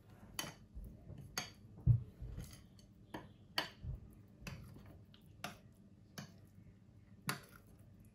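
Spoon stirring a thick yogurt and spice marinade in a ceramic bowl, with irregular clinks and scrapes against the bowl and one louder dull knock about two seconds in.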